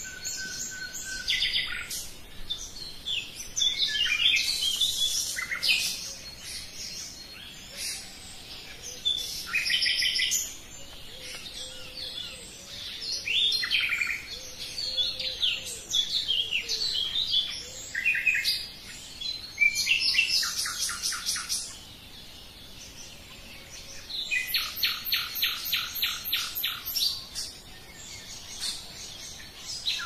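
Nightingale singing: separate phrases of varied whistles and chirps, broken by runs of fast repeated notes, the longest lasting about three seconds near the end, with short pauses between phrases.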